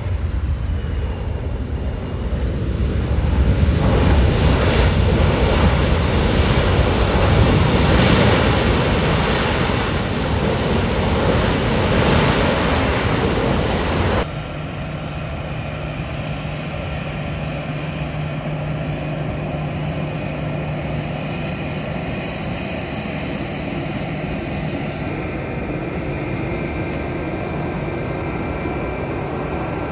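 Boeing C-17 Globemaster III's four turbofan engines, a loud rushing jet noise during the landing roll that swells from about three seconds in. After a cut about halfway through, it gives way to a steadier, quieter jet whine with steady tones as the plane taxis.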